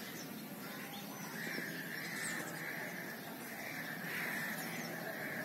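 Outdoor ambience with birds calling: one call repeating about twice a second, with a few short, high chirps over it.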